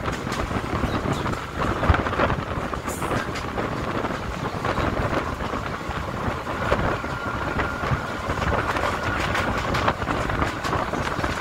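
Passenger train running at speed, heard from its open door: a steady rush of wheels and wind, broken by irregular clicks and knocks from the wheels on the rails.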